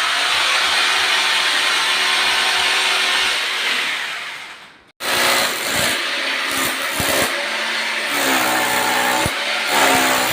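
An electric power tool running steadily, then fading away about four seconds in; after a brief break it runs again, less evenly, with the load changing.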